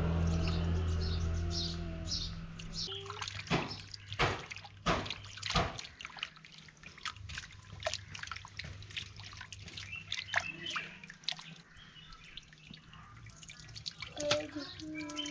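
Water splashing and dripping as raw beef pieces are washed by hand: a quick run of splashes a few seconds in, then scattered drips. A low rumble fades out over the first few seconds.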